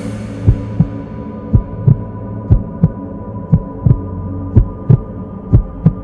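Heartbeat sound effect: six paired lub-dub thumps, about one beat a second, over a low steady hum.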